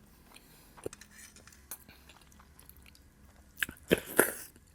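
Close-miked chewing of a mouthful of food, with small wet mouth clicks, then a louder run of chewing and smacking near the end.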